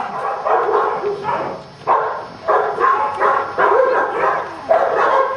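A dog barking repeatedly, a run of loud barks that start sharply, about one every half second to a second.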